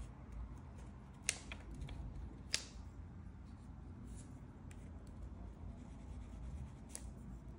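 Faint sounds of a paintbrush picking up paint and dabbing dots onto paper. There are two sharp clicks about a second apart early on and another near the end.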